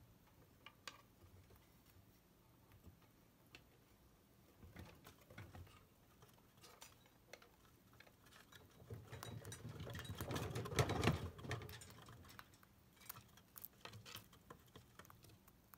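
Chinchillas moving about in a wire cage: scattered faint clicks and scratches, with a louder flurry of rapid clicking over a low rumble about nine to twelve seconds in.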